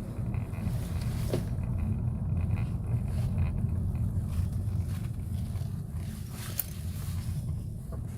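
Suzuki Vitara running, a steady low rumble, with a faint high whine about two seconds in and a single sharp click near the end.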